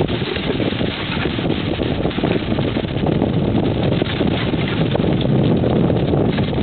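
Wind buffeting the microphone: a dense, steady rumble, heaviest in the low end.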